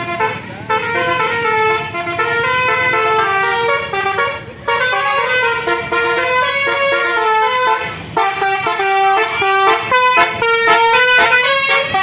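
Basuri-type telolet horn on a tour bus playing a melody, a run of multi-tone notes stepping up and down in pitch. After a brief break about four and a half seconds in, the tune goes on. From about eight seconds in it turns to short, quick staccato notes that grow louder as the bus draws alongside.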